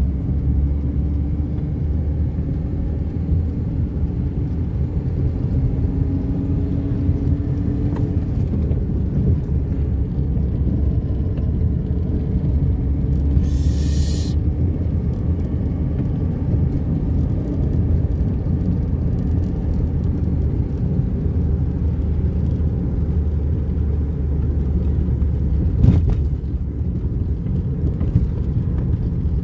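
Car driving along a road, heard from inside the cabin: a steady low rumble of engine and tyre noise, with the engine's pitch rising a few times early on. About halfway through there is a short hiss, and a brief thump comes a few seconds before the end.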